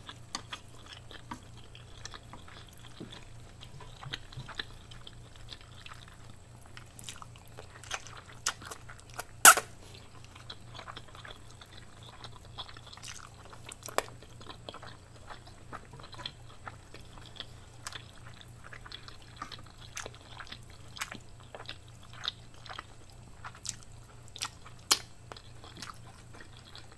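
Close-miked chewing and mouth sounds of someone eating instant noodles and smoked sausage, with many small clicks scattered throughout and one sharper, louder click about a third of the way in. A low steady hum sits underneath.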